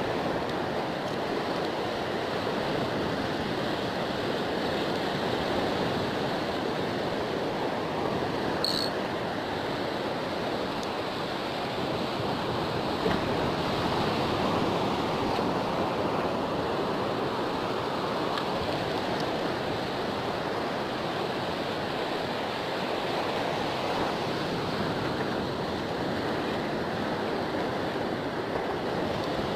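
Ocean surf breaking and washing up the beach, a steady rush of waves that swells and eases gently.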